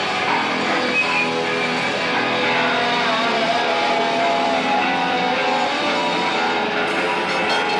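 Live rock band playing: electric guitar, bass guitar and drums in a dense, loud, steady mix. A run of sharp hits comes in near the end.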